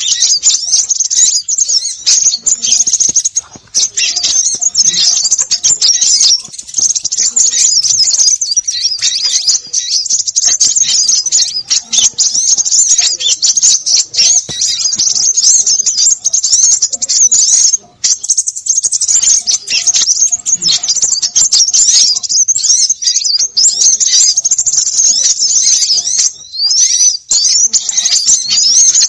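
A dense, noisy chorus of many small birds chattering and twittering at once, high-pitched and nonstop, with one short break about 18 seconds in. It is a 'konin' bird-lure recording of agitated small birds, the kind played to draw small birds in to be trapped.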